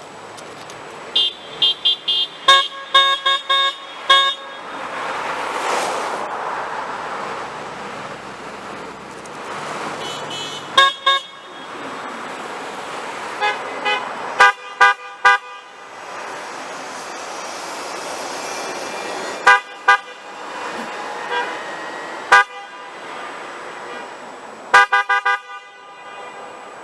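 Car horns from passing traffic honking in support of a roadside protest sign: clusters of quick short toots from several different horns, the busiest burst of rapid beeps in the first few seconds and more volleys every few seconds after. Between the honks the steady noise of passing cars swells and fades.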